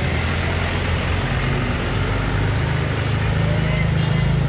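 Truck engine running close by as the truck rolls past, its low hum growing louder in the second half. A steady hiss of rain and running water sits underneath.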